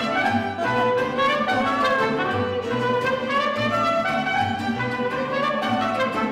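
Mariachi band playing: trumpets and violins carry the melody over a rhythmic bass line.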